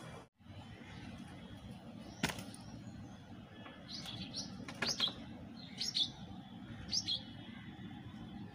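A small bird chirping: short, high chirps, mostly in pairs about a second apart, starting about four seconds in. A single sharp click comes about two seconds in.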